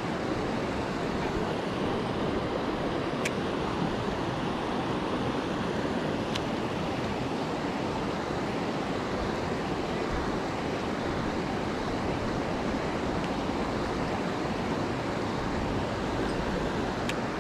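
Fast-flowing creek water rushing steadily, with a few faint clicks.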